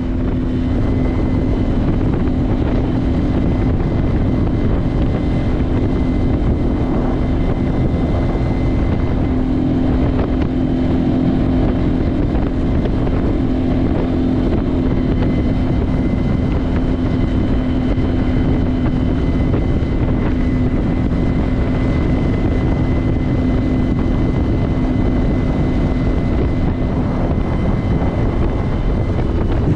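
Outboard motor on a small RIB boat running under way at a steady speed, its engine note constant, with wind noise on the microphone.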